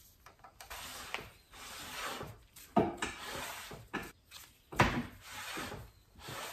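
Cast-iron cross-slide of a South Bend lathe sliding back and forth by hand along its dovetail ways, a scraping rub with a freshly scraped gib. Two sharp metal clunks, about 3 s and 5 s in, the second the loudest.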